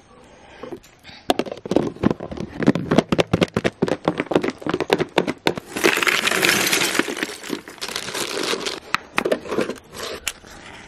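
A quick run of sharp clicks and knocks from handling things at a metal charcoal stove, then, about six seconds in, a few seconds of paper being crumpled as kindling for the fire, with a few more knocks near the end.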